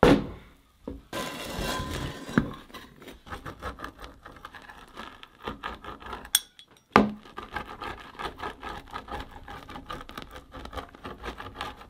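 A pizza wheel rolling and crunching through a baked flatbread crust on a wooden cutting board: a long run of quick, irregular crackling clicks. A sharp knock comes at the start and another about seven seconds in.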